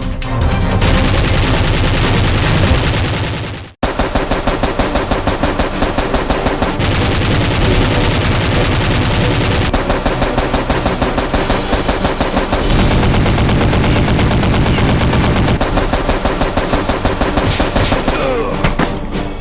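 Rapid automatic gunfire sound effects in long sustained bursts. The sound cuts out abruptly a little under four seconds in, then the rapid firing starts again.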